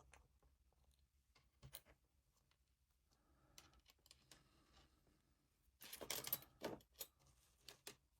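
Near silence with a few faint clicks, then a short cluster of clicks and rattling about six seconds in: small parts and tools being handled while an XT30 connector and its wires are set up for soldering.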